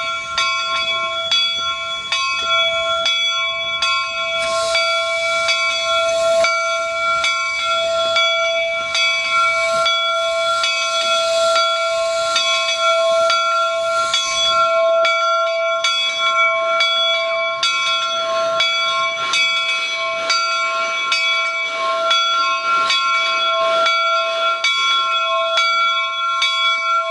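The bell of the Jupiter, a wood-burning 4-4-0 steam locomotive, ringing steadily at about two strokes a second as the engine moves slowly. From about four seconds in until about fifteen seconds in, steam hisses loudly from around the cylinders.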